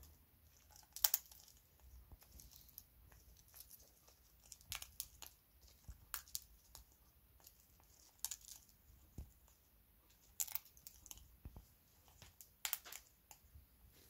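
African grey parrot eating from a bag of seed mix: irregular small crunches and crackles as it cracks seeds, mixed with the crinkle of the plastic bag as its beak digs in.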